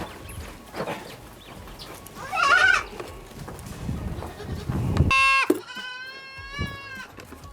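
Young goat kids bleating: a short wavering bleat about two and a half seconds in, then a longer, louder quavering bleat near the end.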